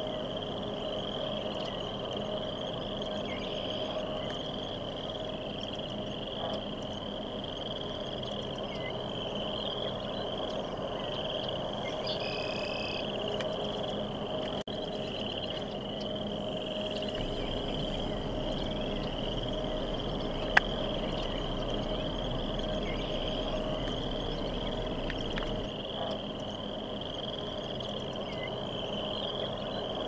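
A chorus of frogs calling, a dense steady wash of high, fast-repeating trills over a lower steady hum, with a single sharp click about two-thirds of the way through.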